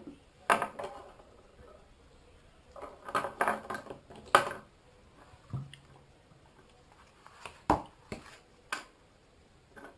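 Small paint tubes, a little jar and a plastic bowl handled and set down on a wooden table: a string of separate knocks and clatters, the loudest about four seconds in.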